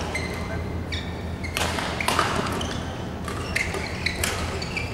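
Badminton rally: sharp racket strikes on the shuttlecock about a second apart, with short high shoe squeaks on the court between them, over a steady low hum.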